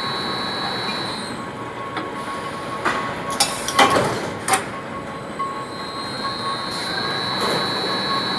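Workshop machinery giving off a steady high-pitched whine that stops about a second in and comes back near the end, with several sharp knocks in the gap.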